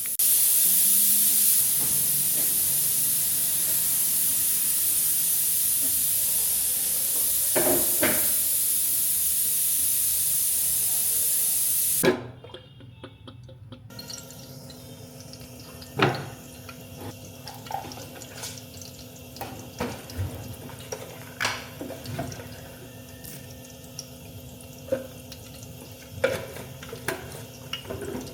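Kitchen tap running hard into a sink, then shut off suddenly about twelve seconds in. Scattered light knocks and clinks follow over a faint steady hum.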